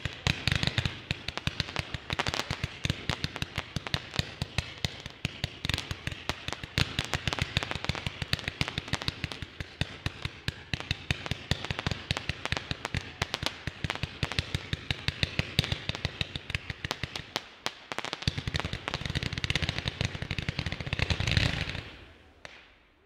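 A 228-shot zipper firework cake firing in a rapid, unbroken string of shots. It swells into a louder, denser finale volley near the end, then dies away.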